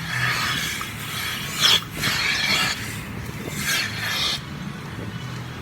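Milking parlour machinery running: a steady low hum with a hiss of air, and brighter hissing surges every second or two.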